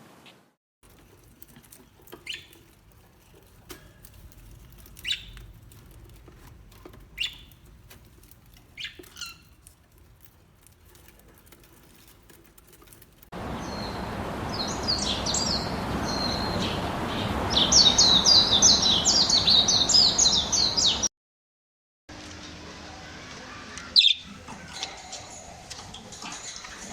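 Budgerigars chirping: single short calls every second or two at first, then about halfway a flock chattering densely over a loud hiss, which cuts off suddenly; quieter calls follow with one sharp chirp.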